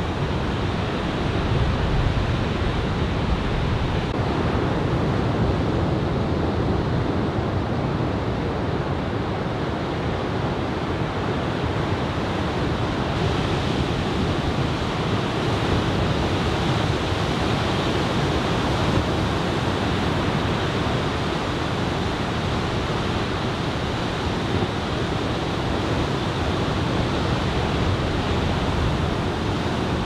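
Ocean surf breaking on the beach: a steady roar of waves with wind, strongest in the low end and without let-up.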